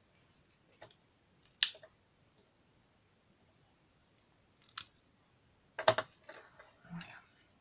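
A few scattered sharp clicks and light knocks of small objects being handled and set down on a table, the loudest about a second and a half in and a quick cluster near the end, with quiet stretches between.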